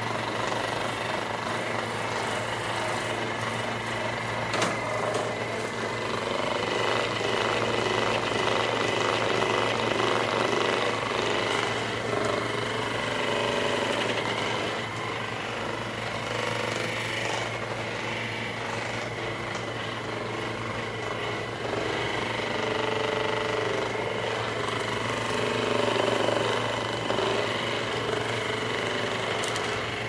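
Handheld percussive massage gun running steadily, pressed against the upper back and shoulders, its sound shifting a little as it is moved over the muscles.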